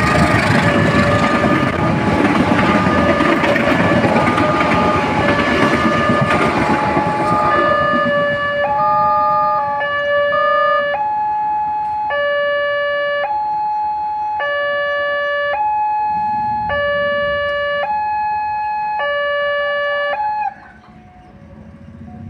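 Railway level-crossing electronic warning sirens, several alarms sounding together over the loud rumble of a passing train. Once the train noise fades, a single two-tone alarm switches between a low and a high tone about every second, then cuts off suddenly near the end.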